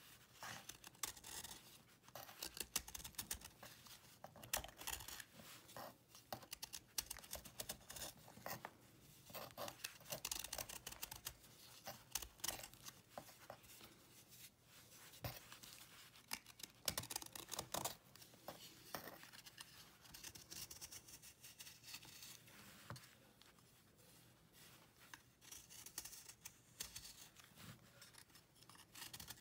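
A metal blade shaving a dried cake of cleaning paste. It gives repeated short, dry scraping strokes at uneven intervals as thin flakes break off the cake.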